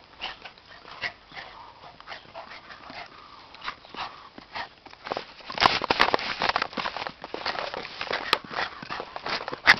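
Blue pit bull-type puppy at play, with a few faint whimpers in the first few seconds. From about halfway there is a dense patter of clicks and scuffs, louder, as the puppy comes up close.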